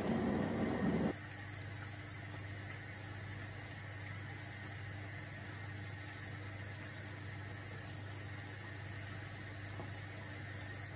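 Balls of semolina batter deep-frying in hot oil: a steady sizzle over a low steady hum, louder for about the first second and then dropping abruptly to a lower, even level.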